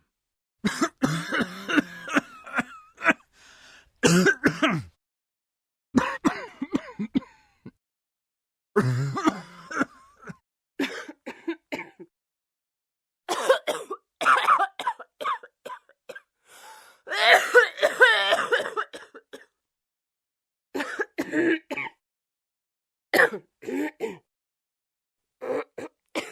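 Human coughing and throat clearing in about nine short, separate bouts, each a second or two of harsh hacks, some of them voiced, with moments of silence between bouts.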